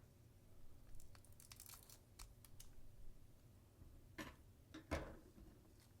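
Scissors cutting open a foil Pokémon card booster pack: quiet scattered snips and crinkles of the wrapper, with two louder cuts about four and five seconds in.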